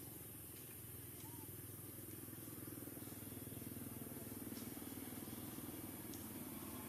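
Faint, steady low rumble of a motor engine that grows slightly louder a few seconds in, with a few faint clicks.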